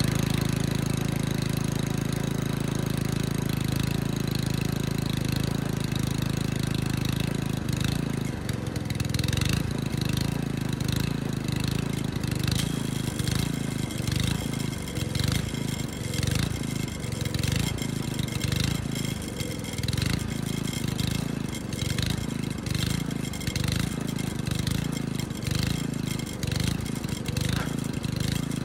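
Small gasoline engine of a Yard Machines 8-ton compact log splitter running just after a choked cold start. It runs steadily for about eight seconds, then turns uneven with a regular pulsing.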